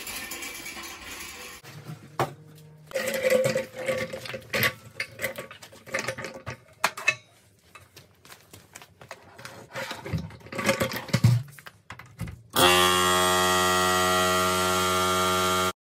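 Scattered handling and clattering noises, then a loud, steady electric motor hum from an air compressor that starts about twelve and a half seconds in and cuts off sharply just before the end.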